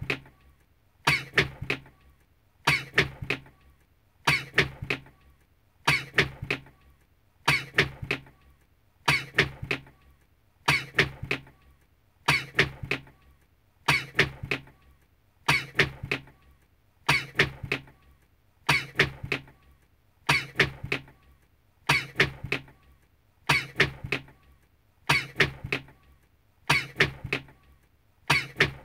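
A man's short recorded sneeze looped over and over, the same clip repeating at an even rhythm roughly every second and a half. Each repeat is a quick run of sharp bursts.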